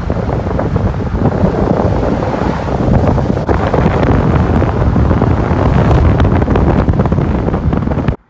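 Strong wind buffeting the microphone: a loud, dense rush of noise heaviest in the low end, cutting off suddenly near the end.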